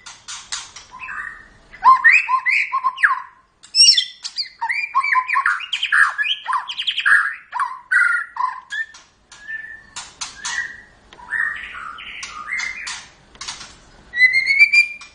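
Bird song: a quick, varied run of chirps and whistles with sharp clicks between them, and a rising whistled call near the end.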